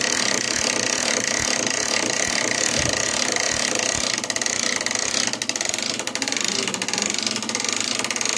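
Hand-cranked ratchet winch clicking rapidly and continuously as it hoists a boar carcass hung on a gambrel.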